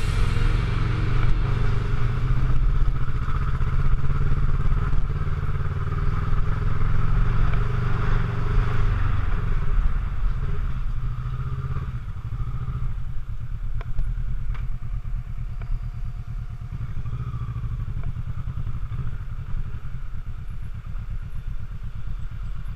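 Kawasaki Versys 650 parallel-twin engine running as the bike is ridden, louder and working harder for the first ten seconds or so, then settling into a lower, evenly pulsing run, with a few sharp clicks about two-thirds of the way in.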